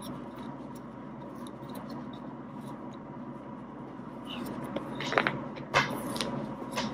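Three-strand rope being handled during an eye splice: strands rubbing and scraping as they are tucked and pulled through, with several short rustles in the second half.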